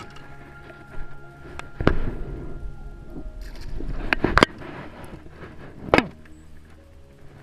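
Sharp knocks and thumps of gear and body against a plastic sit-on-top kayak, with a heavy rumble of handling noise on the microphone between about two and four and a half seconds in; the loudest knocks fall just before the rumble stops and again about six seconds in.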